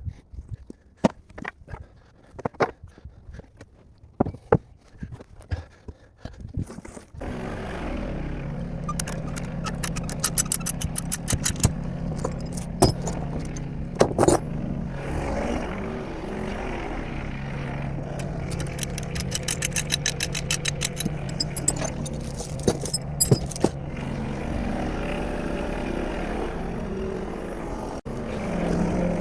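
Scattered light taps and knocks. About seven seconds in, a steady engine hum comes in suddenly, with two stretches of fast, evenly spaced clicking and rattling over it.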